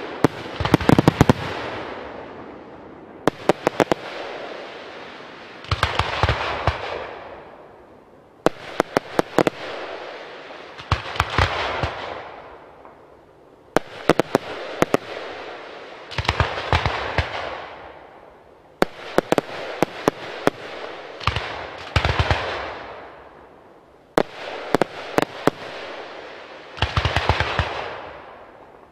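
Aerial fireworks going off in repeated salvos: clusters of sharp bangs every two to three seconds, each followed by a fading crackle.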